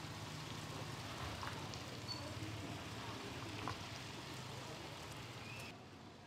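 Small motor scooter engines running at low speed, over a steady hiss of street noise; the engine hum fades after about four seconds and the background drops lower near the end.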